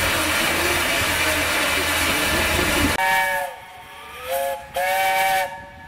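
Steam locomotive 70000 Britannia: a loud, steady hiss of escaping steam, then about three seconds in the whistle sounds several notes together in three blasts. The first sags in pitch as it dies away, then comes a short one and a longer one.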